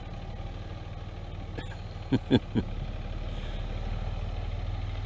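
Pickup truck engine running at low revs as the truck turns around on a dirt road, a steady low hum that grows a little louder over the second half.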